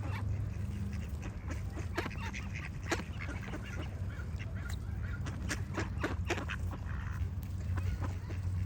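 Ducks quacking in short, sharp calls scattered irregularly, with smaller birds chirping behind them over a steady low hum.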